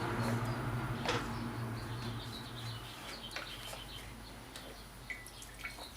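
Old fuel draining from a Homelite chainsaw's tank into a glass, trickling and tapering off, with one knock about a second in. Small birds chirp in the background.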